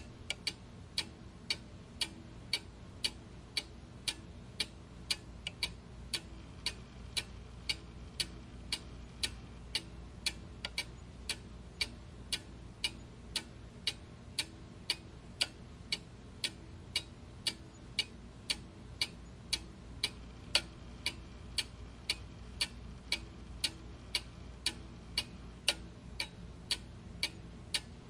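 Clock ticking steadily, with sharp, evenly spaced ticks a little under two a second over a faint low background hum.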